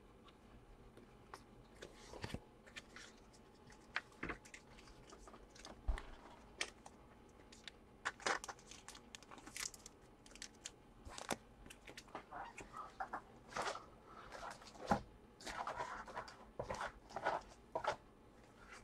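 Faint crinkling and rustling of something being handled, with scattered clicks and taps, getting busier in the second half.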